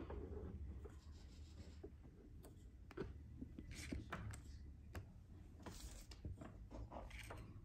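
Faint handling noise: scattered light scratches and soft ticks, a few seconds apart, from a hand holding and moving a smartphone, over a low room hum.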